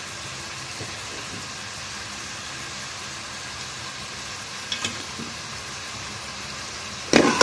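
Mutton, onions and ginger-garlic paste frying in oil in a metal pot, sizzling steadily. A couple of light clicks come about five seconds in, and a spoon starts stirring and scraping against the pot just before the end.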